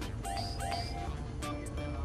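Background electronic music with a steady beat, held synth notes and rising swooping sounds.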